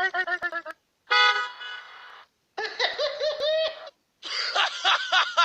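A string of short cartoon comedy sound effects played back to back with short silent gaps: a rapid run of pulsed notes, a single horn-like toot that fades, then two runs of quick, bouncing laugh-like notes.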